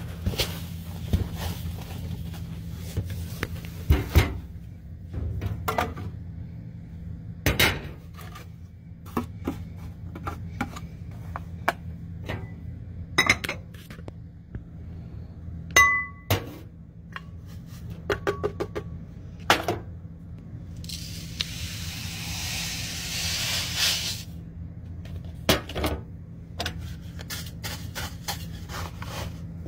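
Glass clinks and knocks from a large glass canister jar, its glass lid set on and off and a plastic scoop tapping inside it, one clink ringing briefly about halfway through. A steady hiss lasts about three seconds past the middle.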